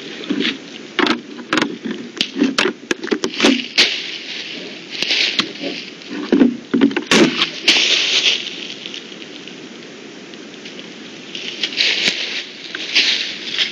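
A trail camera being handled up close by a wild animal: irregular knocks, clicks and scrapes on the housing, thickest in the first half, with rustling swells of noise that come and go.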